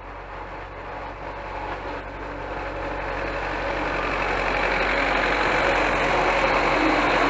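T-40 tractor's air-cooled four-cylinder diesel engine running under load as it pulls a rotary mower through tall grass. It grows steadily louder as the tractor draws near.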